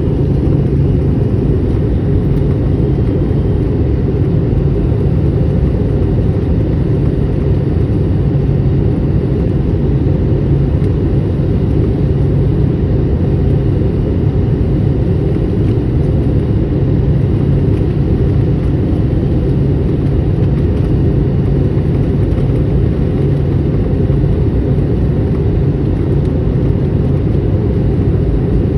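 Airliner cabin noise in flight: a steady low rumble of jet engines and airflow, with a constant low hum.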